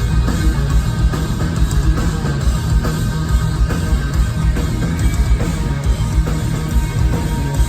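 Hard rock band playing live, with distorted electric guitar over a driving beat.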